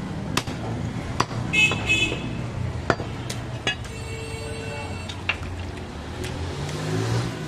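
Steady street-traffic rumble with two short vehicle-horn toots about a second and a half in. A few sharp knocks come from cut meat being handled on the wooden block and metal basin.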